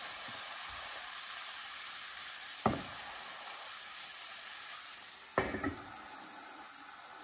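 Sliced mushrooms sizzling in hot olive oil in a skillet while being stirred with a wooden spoon, with one sharp knock near the middle. Near the end the metal lid is set on the pan with a short clatter, and the sizzle goes a little quieter under it.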